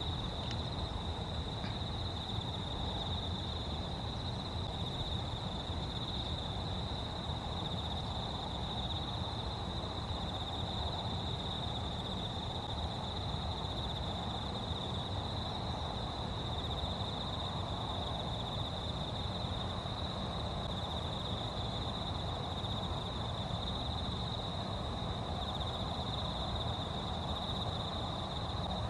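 Continuous high-pitched insect trilling, one unbroken tone for the whole stretch, over a steady low rumble.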